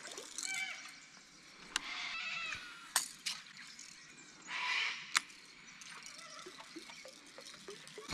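A surface lure being retrieved across still river water: a few sharp clicks and a brief splashy gurgle about four and a half seconds in, with faint chirps in the background.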